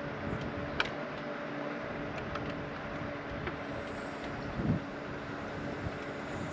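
An engine running steadily at idle, with a few light clicks and one dull thump a little past the middle.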